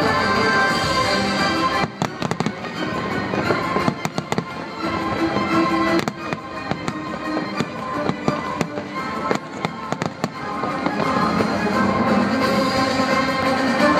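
Aerial fireworks display bursting overhead, with many sharp cracks and bangs, over steady music playing along with the show.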